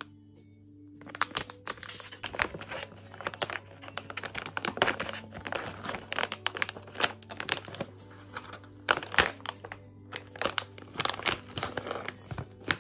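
A foil-lined plastic snack pouch crinkling as it is torn open and handled, starting about a second in, over soft background music.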